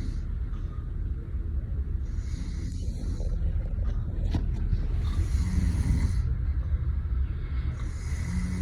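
A person snoring in their sleep: a snore with each breath, about every three seconds, over a steady low rumble.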